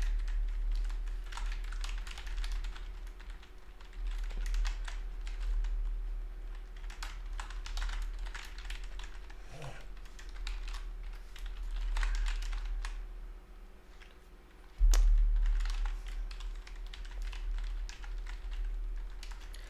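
Typing on a computer keyboard: irregular runs of key clicks over a steady low hum, with one sharper knock about fifteen seconds in.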